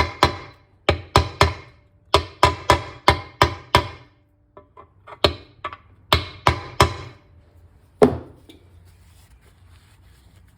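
A hammer striking a socket used as a driver, pressing a new seal into a clutch hub bore on a Gravely transmission. About twenty sharp, ringing metal strikes come in quick runs, then stop some eight seconds in.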